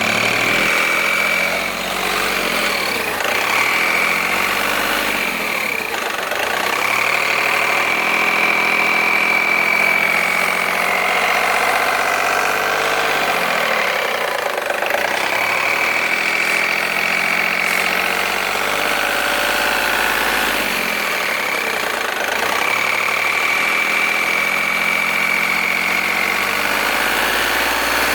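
Volkswagen Polo 9N3 engine running with its revs rising and falling several times, and a high-pitched whine that holds steady for a few seconds at a time, then drops out while the revs change. This is the strange noise the owner is showing.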